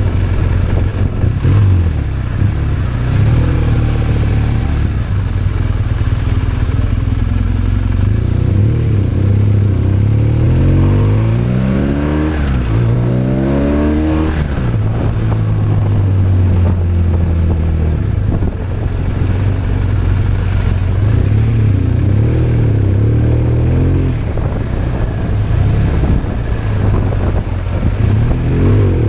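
BMW R1200RT motorcycle's boxer-twin engine running under way; about ten seconds in it revs up through the gears in a few rising sweeps, then settles to a steady note.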